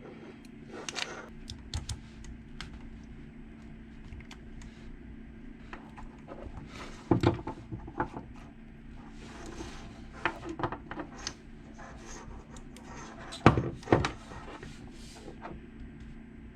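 Scattered clicks, taps and knocks of a Smart Fortwo rear hatch lock's parts being handled and turned over, with one louder knock a little before halfway and two louder knocks later on.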